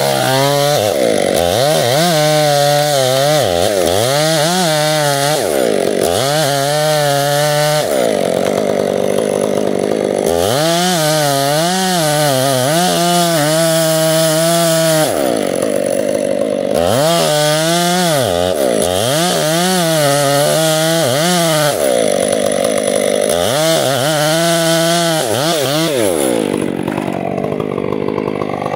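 Stihl MS 500i two-stroke chainsaw with a 36-inch bar and hand-filed square chain, running at full throttle while cutting into a large tree trunk. The engine note dips and climbs again over and over as the chain bites under load, easing off near the end.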